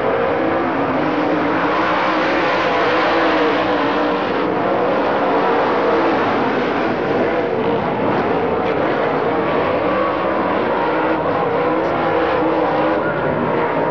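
Motor vehicle engines running loud and steady, their pitch slowly wavering up and down.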